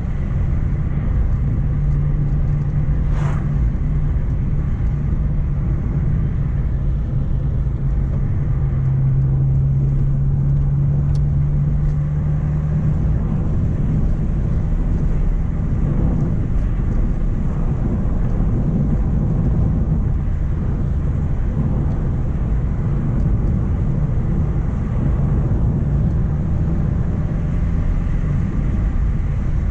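Mk1 Renault Clio driving on the road: a steady engine drone that drops a little in pitch about eight seconds in and fades into the rumble after about thirteen seconds, over continuous low road and tyre rumble.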